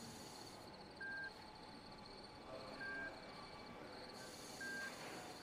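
Hospital patient monitor beeping softly: three short, single-pitch beeps about two seconds apart. A faint high, rapidly pulsing chirr comes and goes in the background.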